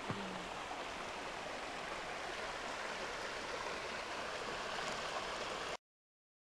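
Shallow snowmelt forest stream rushing and babbling over stones between banks of snow, a steady wash of water noise. It cuts off suddenly near the end.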